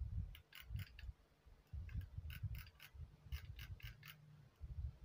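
Computer mouse clicking: three quick runs of about three light clicks each, over a low background rumble.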